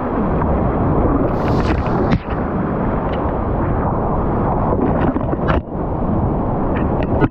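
Steady roar of a flooded whitewater creek rapid heard from a kayak running it, with several sharp splashes as waves break over the boat and paddle.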